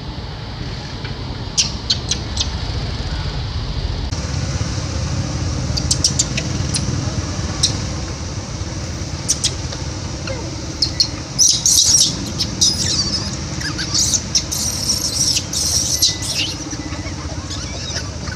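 Macaques giving short, high-pitched squeals and squeaks, thickest about eleven seconds in and again a few seconds later, over a steady low background rumble.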